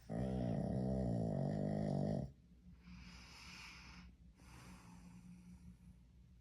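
A dog snoring while asleep: one loud, rattling snore of about two seconds, followed by two softer, airy breaths.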